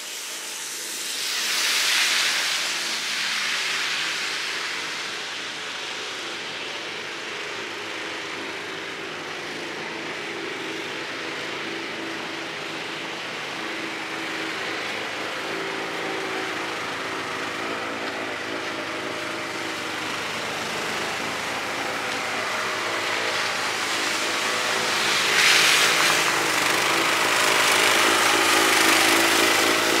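Vehicles going by over a steady engine-like hum, with a hissing swell about two seconds in and another, longer one near the end.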